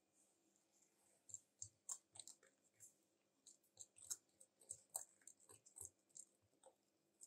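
A metal utensil stirring flour into a wet batter in a Pyrex glass bowl, with soft, irregular clinks and scrapes against the glass. They start about a second in and die away near the end.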